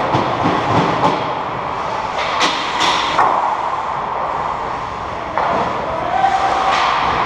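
Ice hockey play in an indoor rink: a steady scrape and hiss of skates on the ice, broken by several sharp clacks of sticks and puck, most of them close together two to three seconds in.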